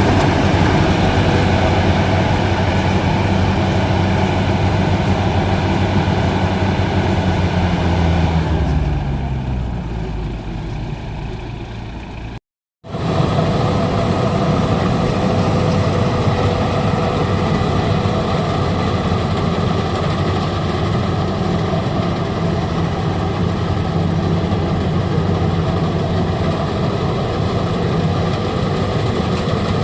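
Engine of a Maxxi Bimo 110 Plus rice combine harvester running steadily. About eight seconds in its pitch drops and the sound fades as the engine slows. It cuts out abruptly, then comes back running steadily at full level.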